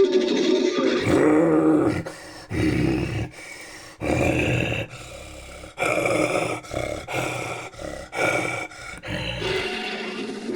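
Designed creature roar sound effects, layered from big-cat and bear roars and a human voice: a long roar, then a run of shorter roars and growls of varying length.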